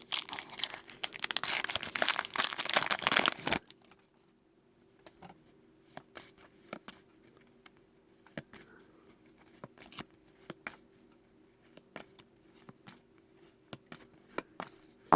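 Foil wrapper of a trading-card pack torn open and crinkled for about three and a half seconds, then faint, scattered soft clicks as the cards are handled and flipped through.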